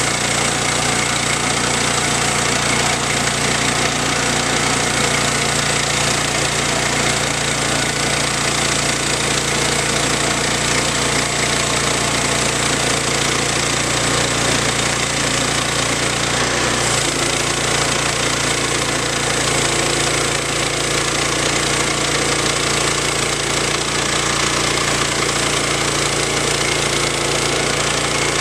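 Woodland Mills HM122 portable bandsaw mill running steadily under load, its gas engine driving the band blade through a log. The engine note shifts slightly partway through the cut.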